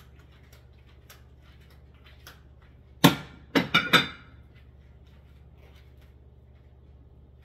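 Hard kitchenware clattering as it is handled on a counter: one sharp knock about three seconds in, then three quick clatters.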